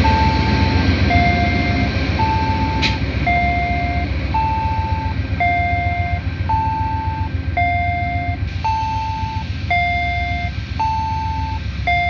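An electronic two-tone warning signal sounding short high and low beeps in turn, about one a second, over the low rumble of an Amtrak P42DC diesel locomotive pulling away. The rumble slowly fades.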